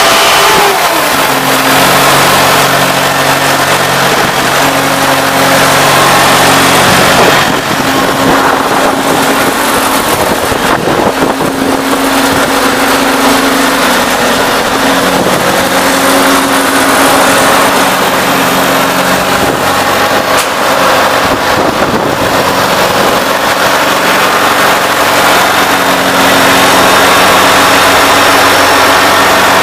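2002 Sullivan 375 CFM portable air compressor running steadily, its engine holding a constant speed with small shifts in level.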